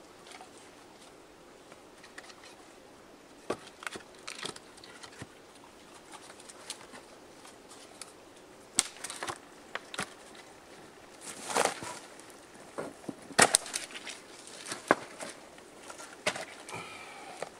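Wooden sticks and split logs knocking and scraping as they are stood upright against a rock face, with rustling of twigs and leaf litter: a string of separate sharp clicks and knocks, the loudest a little past the middle.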